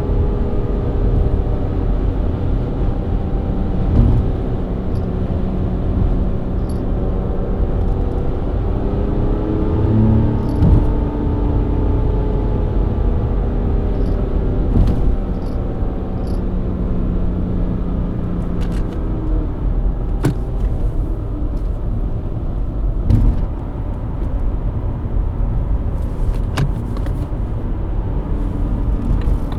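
BMW E90 323i's inline-six engine running at steady cruise with road rumble, its tone drifting slowly up and down. A few short thumps come through, the sharpest about four seconds in.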